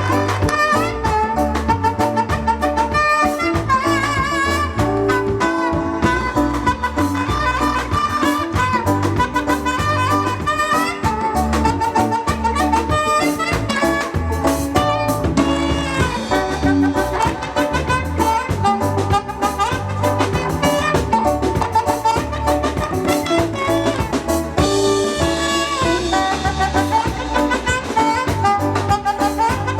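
A live band playing an up-tempo number with a steady beat, horn lines carrying the melody over drums and bass, at a sound check.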